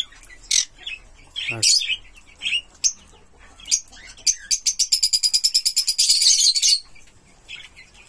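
Green-cheeked conure giving short high chirps, then a fast run of rapid chirps lasting about two and a half seconds, starting about four seconds in.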